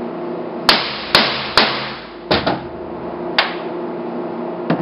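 Hammer striking a curtain-grommet hole cutter set on fabric over a cutting board, punching the hole for the eyelet: about six sharp blows, the first three about half a second apart, then more spaced out.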